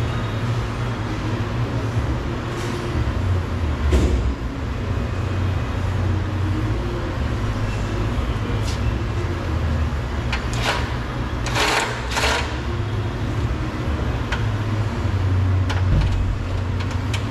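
Steady low mechanical hum, with a few short clicks and rasps from hand tools working the door's handle screws and trim: one about four seconds in and a close-set group near the middle.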